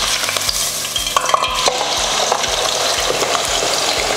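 Cubed raw potatoes frying in hot oil in a wire-basket pot fryer: a steady, dense sizzle and crackle. This is the first of two fryings.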